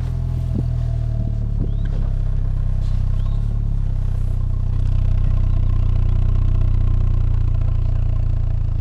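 Truck engine running steadily, a little louder from about halfway through, with a couple of short knocks in the first two seconds.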